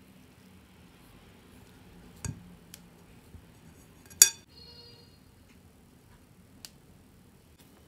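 Metal spoons clinking in a ceramic mixing bowl while scooping thick cookie dough: a few scattered clinks, the loudest about four seconds in with a brief ring.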